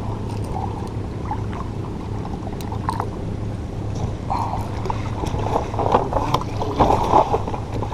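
Small boat engine running steadily with a low hum, as a banka boat motors along, with a louder rushing of water and wind in the second half.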